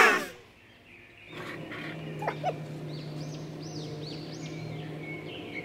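A short, loud sweeping sound falling in pitch at the very start. After a brief hush, birds chirp repeatedly over a steady low hum.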